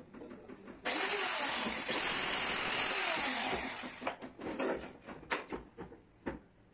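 Handheld electric router on a flat base plate, running and cutting plywood: a steady, loud whine and rasp that starts about a second in and stops about four seconds in. After it, a series of light knocks and clicks as cut plywood pieces are handled.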